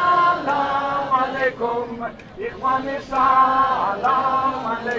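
Voices singing a slow melody in long held notes, with a short break about halfway through.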